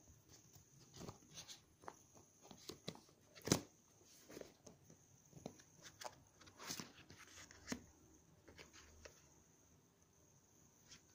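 Faint handling noises of a cardboard phone box and its insert: scattered clicks, scrapes and rustles as a smartphone is lifted out, with one sharper knock about three and a half seconds in.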